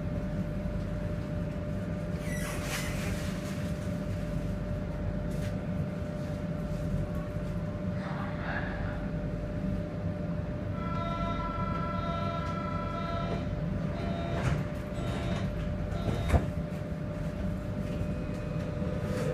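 Berlin U-Bahn train heard from inside the carriage while running between stations: a steady low rumble of wheels on rail with a constant hum. A few steady whining tones sound for about two seconds a little past the middle, and there is one sharp click about three-quarters of the way through.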